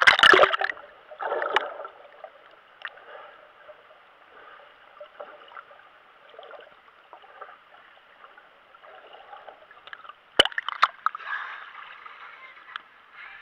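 Sea water splashing and sloshing around a GoPro in its waterproof housing as it goes under the surface and comes back up, with a loud splash at the start and a quieter stretch while it is under water. A sharp knock comes about ten seconds in, followed by more splashing.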